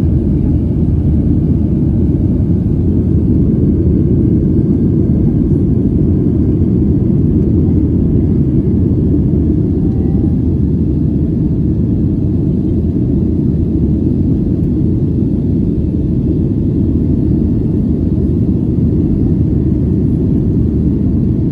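Steady low rumble of a Southwest Airlines Boeing 737's jet engines and rushing air, heard from inside the passenger cabin during the climb after takeoff.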